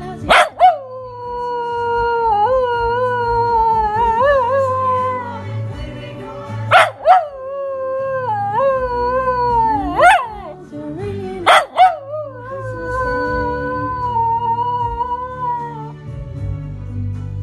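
A cockapoo howls along to a Christmas song in long, wavering howls held for several seconds each. The howls are broken by about four short, sharp, loud sounds, and the song's music plays steadily underneath.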